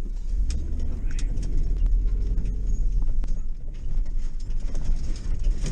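Car or work van driving, a steady low engine and road rumble, with scattered irregular clicks and knocks on top.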